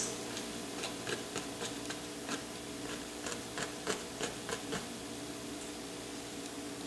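Soft, irregular taps of a paintbrush dabbing thick oil paint onto a stretched canvas, a couple of taps a second, stopping about five seconds in. Under them runs a steady low hum.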